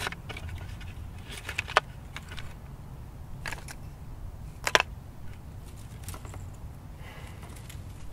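Dry sea lion bones clacking against each other a few times as they are handled in a woven net basket, with the loudest knock nearly five seconds in.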